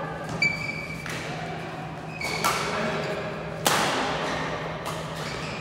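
Badminton rackets hitting a shuttlecock about five times in a rally, sharp hits about a second apart, the loudest about two-thirds in, echoing in a large hall over a steady low hum.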